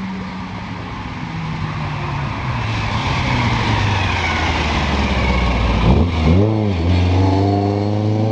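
Mk2 Ford Escort rally car approaching at speed. Its engine note falls steadily as it lifts off, blips up and down quickly about six seconds in, then climbs as the engine revs hard and accelerates away.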